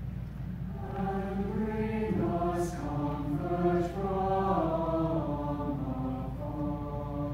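Mixed high school choir singing slow, sustained chords, the voices holding each chord and moving to the next about every half-second to a second, with a couple of soft 's' consonants.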